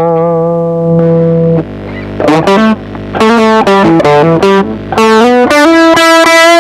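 Electric guitar playing single-note phrases through a TC Electronic HyperGravity mini compressor pedal. A note held at the start and quick runs of short notes come out even in level, and a long note rings on steadily near the end.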